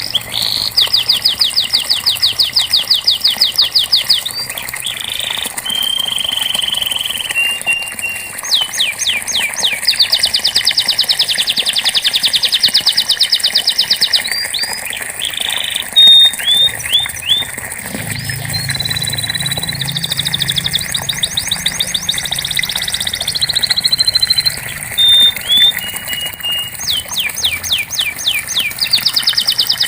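Domestic canary singing a long, continuous song. Its rapid trilled rolls of repeated notes alternate with short whistled notes and quick sweeps.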